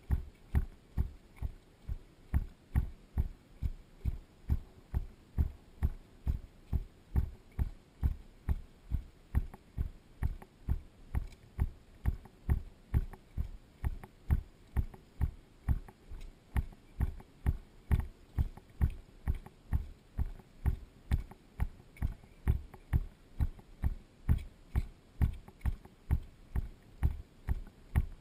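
Firefighters' boots marching in step, a steady low thud about twice a second, heard through the body-worn camera as heavy thumps.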